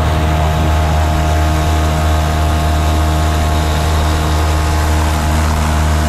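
Mercury 5 hp outboard motor running at a steady speed, driving a kayak under way.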